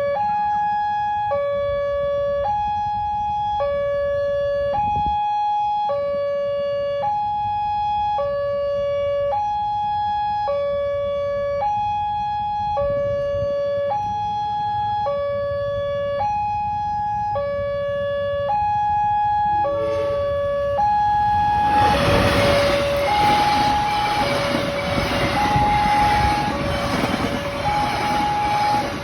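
Railway level-crossing warning alarm sounding a slow two-tone signal, a low note and a higher note each held about a second in turn. About twenty seconds in, a passing train's loud rumbling rush joins it and runs on under the alarm.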